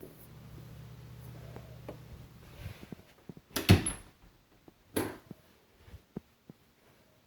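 A low steady hum that stops about two and a half seconds in, then two loud thuds about a second apart, followed by a few light clicks.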